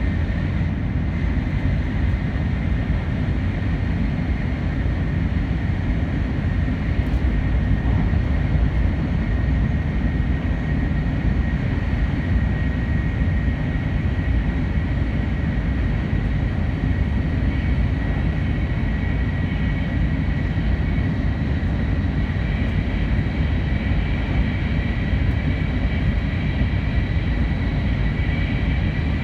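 Running noise of an N700 series 8000 subseries Shinkansen heard from inside the passenger cabin: a steady low rumble with a faint, steady high whine over it.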